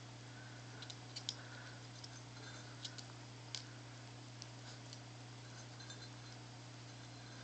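Small long-haired dog chewing dry kibble off a tile floor: scattered crisp clicks and crunches, over a steady low hum.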